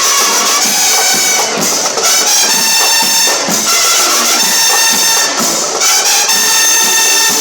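Loud brass band music, with horns holding sustained notes that change every second or so.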